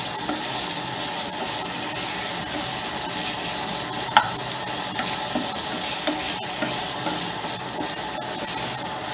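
Chicken pieces sizzling steadily as they fry in hot oil with onion, garlic and curry leaves, being stirred in the pan. A single sharp clink about four seconds in.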